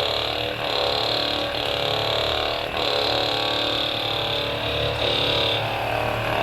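Hypervolt percussion massage gun running against the neck and shoulder muscles: a steady motor buzz with a high whine, its pitch briefly dipping a few times as it is pressed in. It is loosening the soft tissue ahead of a chiropractic adjustment.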